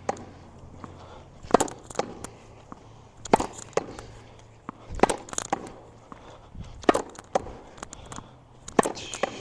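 A wet tennis ball rallied against a wall: pairs of sharp knocks as the racket strikes the ball and the ball hits the wall, repeating about five times at a steady pace.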